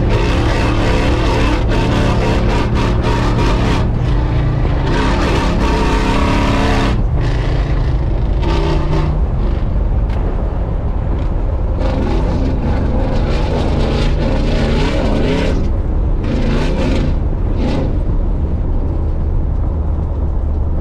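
Long-travel Toyota Tundra pickup's engine revving up and down again and again as the truck drives hard through desert dirt, fading away near the end. A heavy low rumble of wind on the microphone lies under it.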